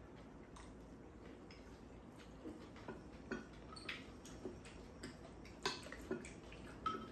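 Light clicks and taps of spoons and chopsticks against ceramic bowls, about ten scattered through, with quiet chewing between them as two people eat.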